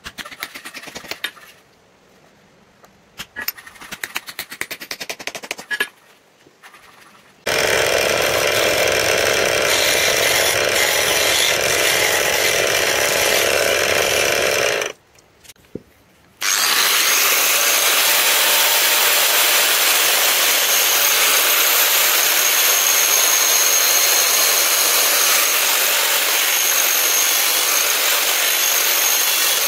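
Power tool grinding the steel of a sword blade made from a leaf spring. It makes a steady, loud grinding noise from about seven seconds in, stops for about a second and a half near fifteen seconds, then runs on. Before it come several seconds of scattered, irregular clicks.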